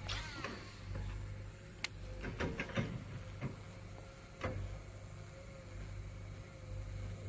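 Baitcasting reel during a cast and retrieve: the spool whirs as the lure flies out, falling in pitch as it slows, then a faint steady whir with scattered clicks while the line is wound back in.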